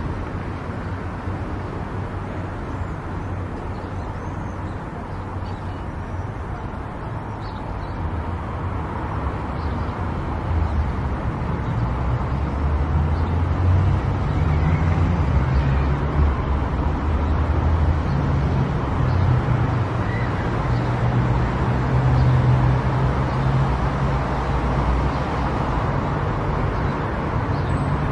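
Car driving on a road: steady low engine and tyre rumble, getting louder about ten seconds in and staying up.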